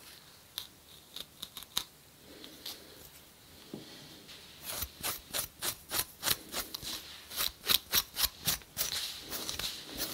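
Scratching strokes on the scalp, lifting dandruff scale of seborrheic dermatitis: a few scattered scrapes, then from about halfway a quick run of sharp strokes, about three a second.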